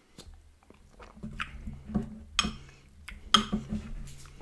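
Metal spoon scraping and clinking against a glass mug while scooping soft ice cream, with two sharp ringing clinks in the second half, amid soft wet chewing sounds.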